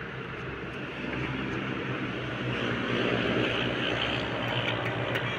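A steady engine-like drone, growing a little louder in the second half.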